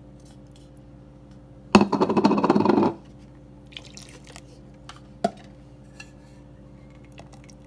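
A spatula and bowl scraping and clattering against a stainless steel mixing bowl for about a second as banana batter is scraped in, then quieter pouring of milk and a single sharp knock about five seconds in, over a steady low hum.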